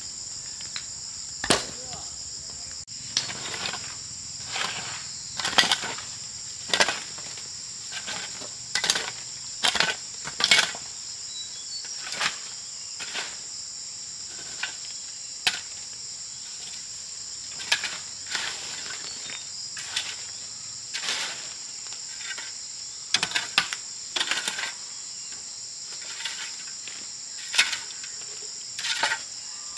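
Steady high-pitched insect chorus of crickets or cicadas, with irregular sharp knocks and taps every second or so, some in quick clusters.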